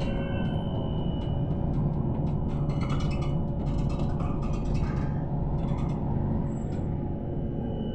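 Cabin noise inside a moving PKTS-6281.01 "Admiral" trolleybus: a steady low rumble from the running gear and road, with scattered rattling clicks about halfway through.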